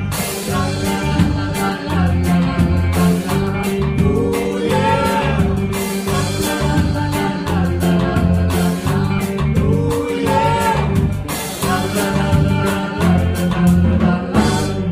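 Live rocksteady band playing: a woman singing lead over electric guitar, bass and drums in a steady, loping rhythm.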